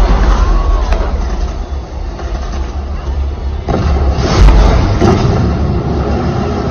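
Stunt boat engine running over a heavy low rumble from the show's pyrotechnic blasts, with a loud bang about four and a half seconds in and a smaller one soon after.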